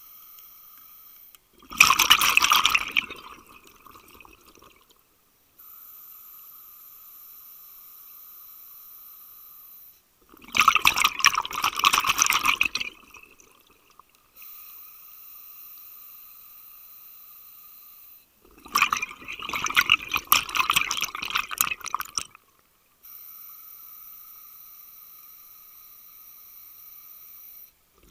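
Scuba regulator breathing underwater: three long gurgling rushes of exhaled bubbles about eight seconds apart, with a quieter steady hiss between them, and a fourth exhale starting at the very end.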